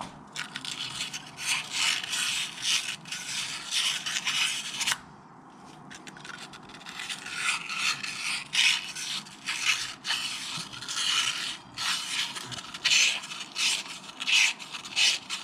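A pilot bushing being sanded down with coarse 80-grit abrasive, rubbed back and forth in quick rasping strokes to shrink its outside diameter to fit the crankshaft bore. The strokes stop for about a second around five seconds in, then carry on.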